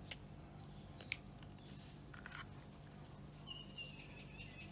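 Faint, scattered light clicks of small pedal parts being handled over a steady low hum. About three and a half seconds in, a short faint high chirp is heard.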